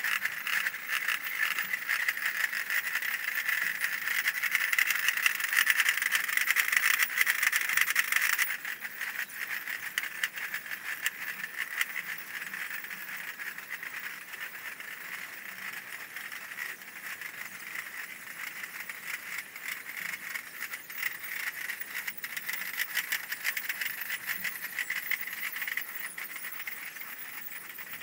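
Basel Fasnacht piccolos and drums of passing cliques, sped up by the timelapse into a dense, continuous rattle. The high piccolo band drops away suddenly about eight seconds in, leaving a fainter rattle of drumming.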